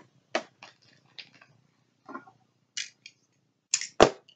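Scattered clicks and clacks of small hard objects being handled at a desk, irregularly spaced, the loudest a sharp knock about four seconds in.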